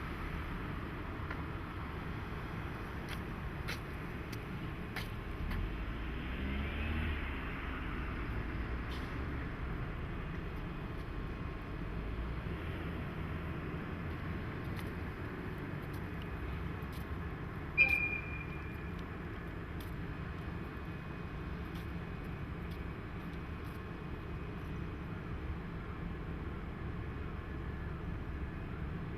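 Steady low vehicle rumble, a little louder around six to eight seconds in, with one short sharp high squeak about eighteen seconds in.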